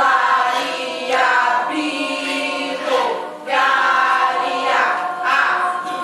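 Mixed youth choir of girls and boys singing under a conductor, in phrases of a second or two with short breaths between them.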